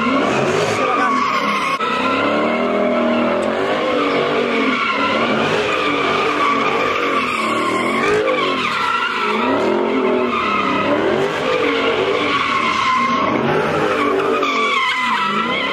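A car doing donuts, tyres screeching without a break while the engine revs rise and fall over and over.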